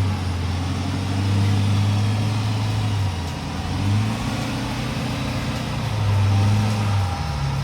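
Full-size pickup truck engine running at low revs, a steady hum that swells and eases a few times.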